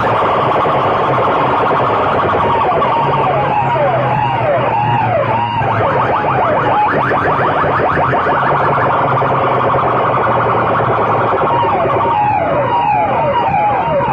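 Banks of horn loudspeakers blasting a loud electronic siren-like sound effect: a fast pulsing buzz, with rising-and-falling wails about two a second that come in a few seconds in and again near the end.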